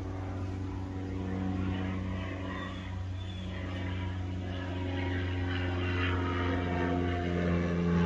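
A steady engine drone with a low hum and overtones, gradually getting louder.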